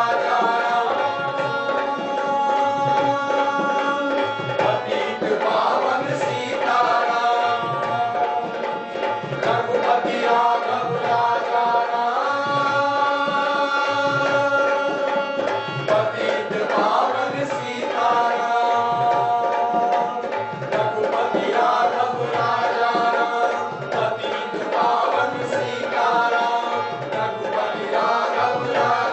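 Stage actors singing together in long held notes over a steady drum beat about once a second.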